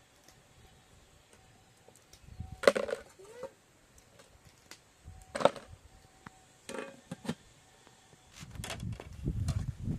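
Wood being chopped or split: a few sharp, separate cracks several seconds apart, the loudest about two and a half and five and a half seconds in. A low rumbling noise builds near the end.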